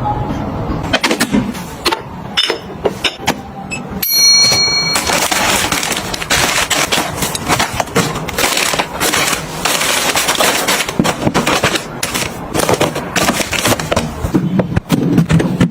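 Kitchen items being handled and set down: sharp clicks and knocks, a brief high-pitched tone about four seconds in, then several seconds of dense rustling and crackling before the clicks thin out again.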